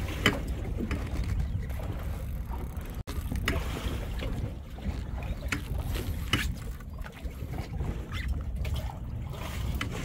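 Steady low rumble of wind and boat noise on a fishing boat's deck, with scattered light clicks and knocks. The sound drops out for an instant about three seconds in.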